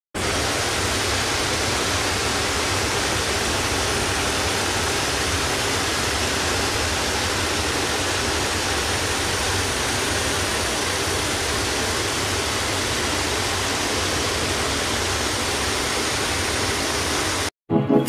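Steady, even rush of a waterfall's falling water, which cuts off suddenly near the end.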